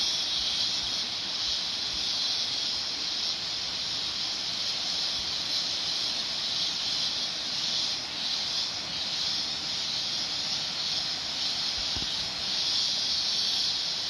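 A chorus of rainy-season cicadas shrilling in one high, unbroken band that gently swells and eases every second or two.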